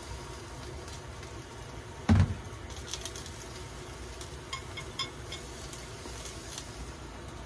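A dull thump about two seconds in, then a few light clinks of chopsticks against a ceramic bowl as food is picked from it, over a steady low background hum.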